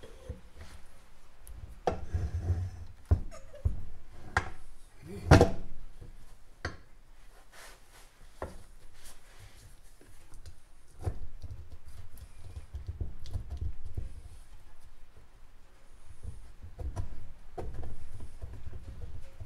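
Aluminium crankcase halves of a 1964 Norton Atlas engine being worked apart on a wooden workbench: irregular sharp knocks, the loudest about five seconds in, with metal scraping and rubbing against the bench between them.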